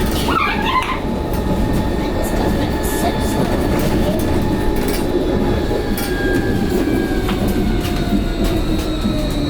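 Vossloh Tramlink tram running along the track, a steady rumble with faint thin whines that slowly fall in pitch and scattered light clicks. A brief wavering squeal comes about half a second in.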